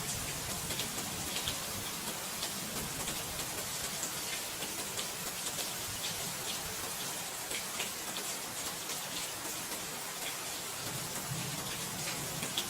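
Steady rain falling, an even hiss with scattered drop ticks, and a low rumble coming in near the end.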